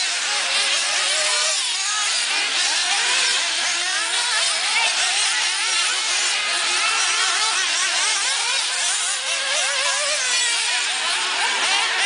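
Several 1/8-scale RC buggies' small nitro engines racing, many overlapping whines rising and falling as the cars accelerate and back off.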